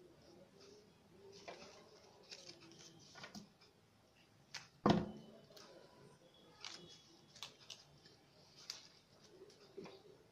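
Green craft paper rustling and crinkling as it is handled and fitted onto a paper flower stem, with scattered small clicks and one louder knock about halfway through.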